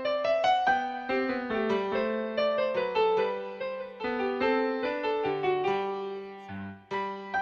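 Background piano music: a quick melody of short notes over a held low note, dipping briefly near the end.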